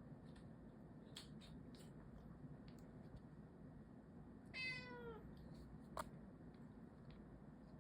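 A cat giving one short meow about halfway through, falling in pitch as it ends. A few faint clicks come before it and a sharper click about a second after.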